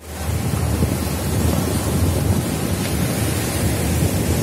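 Sea surf breaking and washing up the beach, a steady rush of waves, with wind buffeting the microphone as a low rumble.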